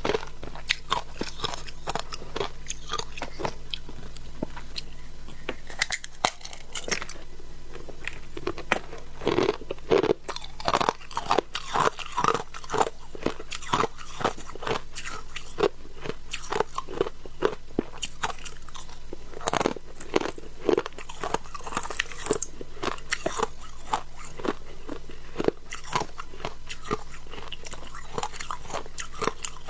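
Shaved ice being bitten and chewed close to the microphone: a dense, irregular run of sharp crunches, with louder clusters of bites now and then.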